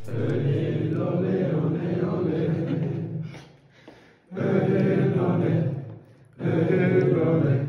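A football team's players chanting together in unison as a victory chant. There is one long phrase of about three seconds, then two shorter phrases, with a brief pause before each.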